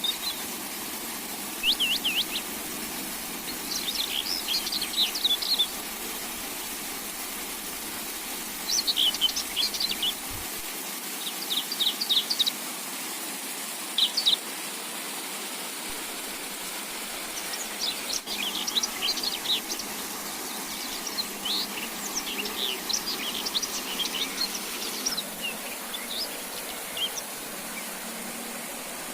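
Small songbird singing in short phrases of rapid, high chirps and trills, about a dozen phrases with brief gaps between them, over a steady hiss.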